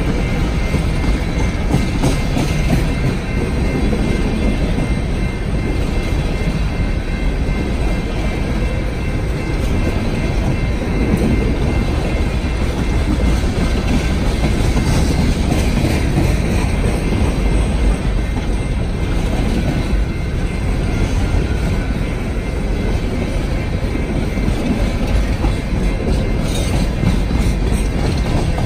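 Diesel freight locomotives or a freight train running: a steady, loud low rumble with no breaks.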